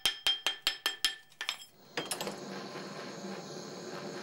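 Rapid, even metallic ticking, about five ticks a second, each with a short ring, stops about a second and a half in. After a brief quiet gap, a steady hiss with a low hum sets in.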